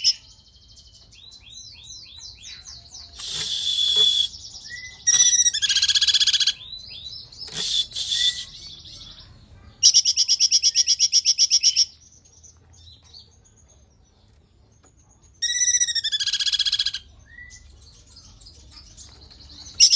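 A cungkok songbird singing: fast, high rattling trills about two seconds long, twice, with harsh chattering notes and short down-slurred whistles between them.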